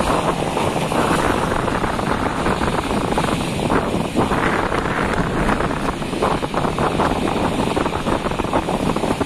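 Strong wind buffeting the microphone on a small fishing boat in a rough sea, a loud steady rush with the sea and the boat's motor running beneath it.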